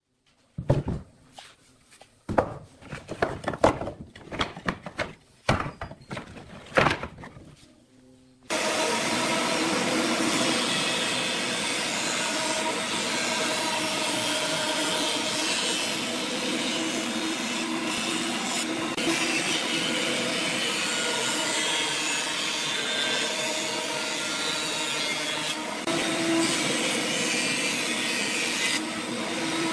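A few seconds of separate sharp hits. Then, from about eight seconds in, a jointer runs steadily, its cutterhead shaving the edge of a wooden board fed across it.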